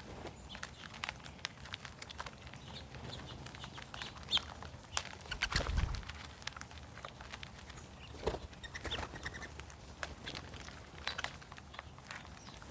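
Mourning doves feeding in a flock: scattered light clicks and short wing flutters, with a louder flutter about five and a half seconds in and another about eight seconds in.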